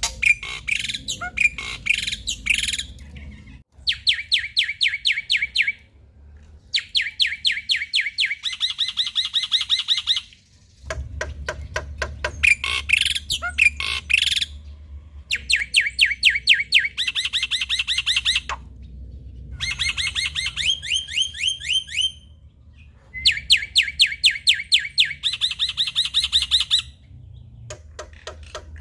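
Male black-winged starling (jalak putih) singing in loud phrases of fast, rattling, repeated notes, each phrase a few seconds long with short pauses between, mixed with harsher chattering notes.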